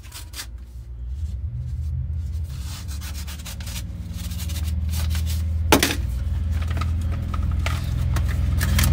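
Paper envelope being slit open with a utility knife and its contents handled, a scratchy rubbing and rustling of paper, with one sharp click a little past halfway. A low rumble builds toward the end.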